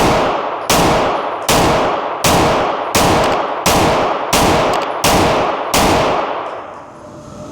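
SIG Sauer pistol firing nine evenly paced shots, about one every three-quarters of a second, each with a long echoing tail.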